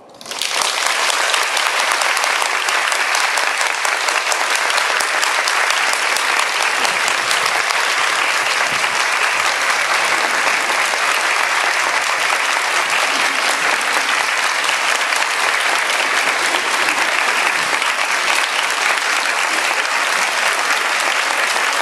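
A large crowd applauding, breaking out suddenly and keeping up a dense, steady clapping without a break.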